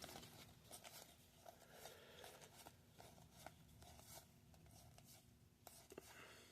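Near silence with faint, scattered ticks and rustles of trading cards being handled and flipped.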